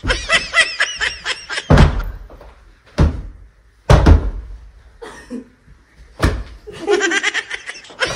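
Four loud thumps of blows in a pillow fight, with cushions and pillows hitting people, between bursts of high, rapid laughter at the start and near the end.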